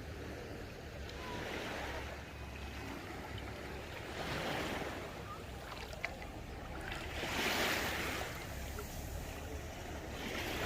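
Sea waves washing in on the shore, the rush swelling and fading about every three seconds.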